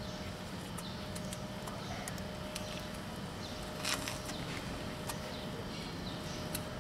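Cat eating dry kibble from the ground, with short irregular crunches as it chews and one louder crunch about four seconds in, over a steady low background noise.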